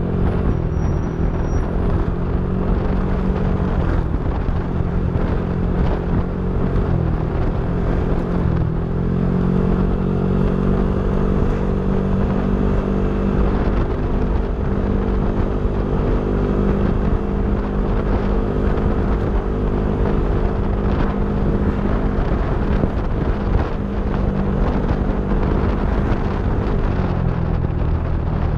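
Yamaha NMAX V3 scooter's single-cylinder engine running through a TSMP 2.5 aftermarket exhaust. The steady engine note dips briefly a few times and settles back.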